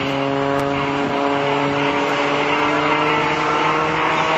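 MX-2 aerobatic plane's piston engine and propeller droning steadily in flight, the pitch creeping slightly higher toward the end.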